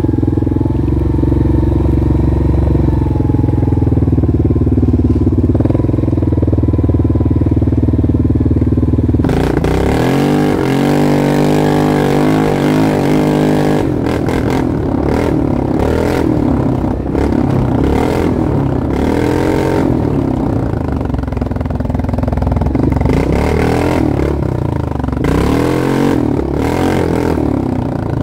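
ATV engine running steadily at low speed, then from about nine seconds in revving up and down again and again as it is ridden along a dirt trail, with knocks and rattles from the bumps.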